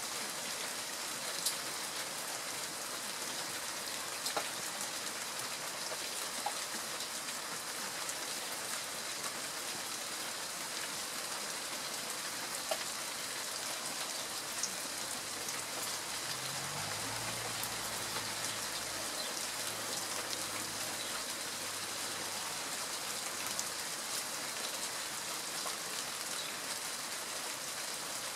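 Steady rain falling, a hiss with scattered sharp ticks of individual drops striking. A faint low hum comes in from about halfway through and fades a few seconds later.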